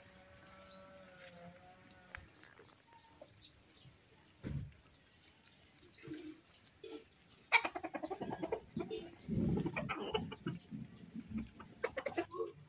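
Domestic chickens clucking, with a small bird chirping over and over in a high call about twice a second. A louder cluster of clucks and short knocks comes about two-thirds of the way in.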